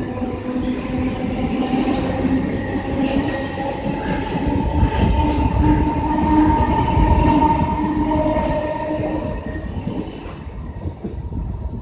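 Mumbai local electric train pulling away, its motors whining in slowly rising tones over the rumble of the wheels on the track.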